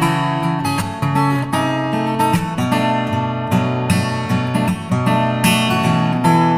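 Music with strummed acoustic guitar, steady strumming throughout.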